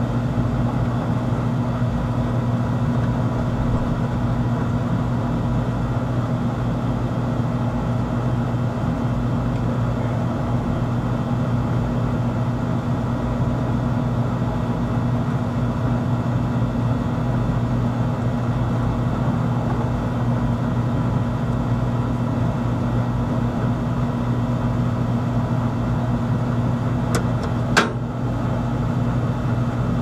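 Steady low machine hum at a constant pitch, with one sharp click near the end.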